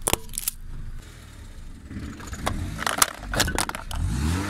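Car engine running, its pitch rising near the end as the car moves. Over it come scattered sharp cracks and crackles, clustered about two to three and a half seconds in, as the tyre rolls over crushed plastic and grit on the asphalt.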